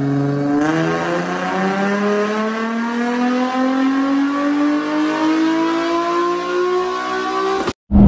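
Infiniti G35 sedan's 3.5-litre V6, breathing through a single-exit catback exhaust, pulling at full throttle on a chassis dyno, with the engine note climbing steadily in pitch as the revs rise through a power run. The sound cuts off abruptly near the end.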